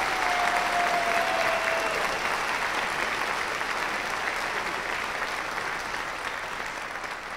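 Concert audience applauding after a school band piece, gradually thinning out toward the end.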